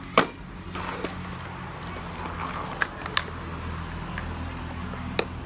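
Sharp clicks and soft crinkling from a plastic water bottle being handled and gnawed by a baby monkey. The loudest click comes just after the start, with a few fainter ones later, over a steady low hum.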